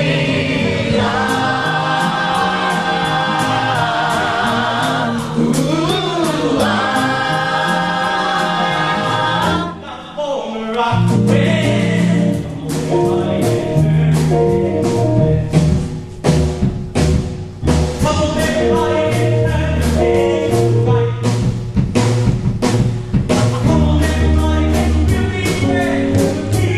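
Musical-theatre cast singing a gospel-style choral number with held, wavering chords. About ten seconds in the sound dips briefly, then a band comes in with a strong bass line and regular drum hits under more singing.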